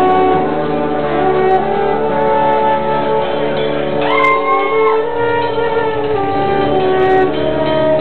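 Live street marching band playing: horns holding chords over snare and bass drums. About halfway through, one horn slides up to a high note, holds it and slides back down.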